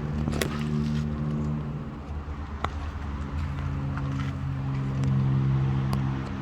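An engine running steadily, its pitch stepping slightly lower about halfway through, with a few sharp clicks over it.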